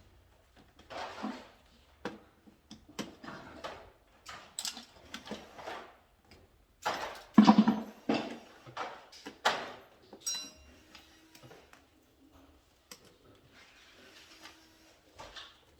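Irregular rustling, clicking and knocking of hand work with tools and parts, in uneven bursts, loudest about seven to eight seconds in.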